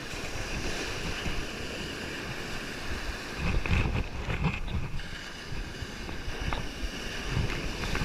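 Surf washing on the beach with wind gusting across the microphone; the wind rumble swells for a moment about halfway through.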